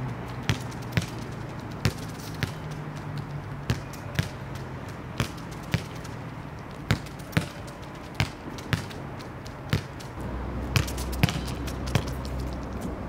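A soccer ball kicked one-touch against a wall: sharp thuds, mostly in pairs about half a second apart (foot strike and wall rebound), a pair every second or so. A steady low hum runs underneath, and a louder low rumble comes up about ten seconds in.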